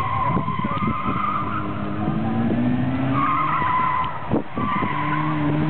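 Classic Mini's A-series four-cylinder engine revving hard as the car is thrown through a cone slalom, its tyres squealing in repeated spells at each turn. The engine note climbs in pitch in the middle and picks up again near the end.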